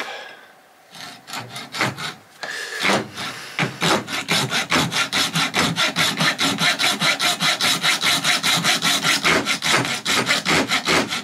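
Junior hacksaw cutting through the tip of a clear plastic PET bottle preform. It starts with a few separate strokes, then settles about three seconds in into fast, even back-and-forth sawing at about five strokes a second.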